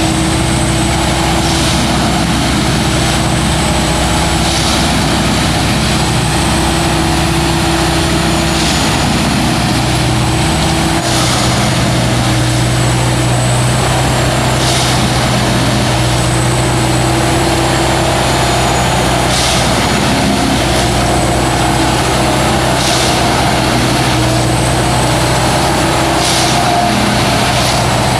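Heavy diesel engine of a railway track maintenance machine running steadily, its note stepping up slightly about eleven seconds in, with short hisses every few seconds.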